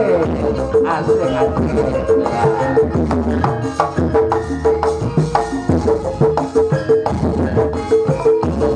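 Javanese gamelan ensemble playing lively dance music: a bright metal note struck over and over in quick succession over sharp drum strokes and a steady low bed.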